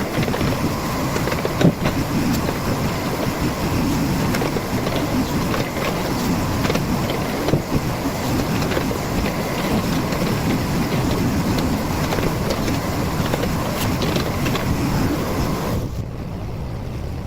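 Heavy earth-moving machine running on site, a steady engine drone with a few sharp knocks, becoming quieter and duller near the end.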